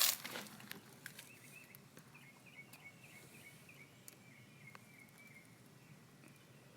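Faint outdoor ambience with a quick, uneven run of small high chirps from a small creature for a few seconds, after a brief rustle and knock at the very start and a few scattered clicks.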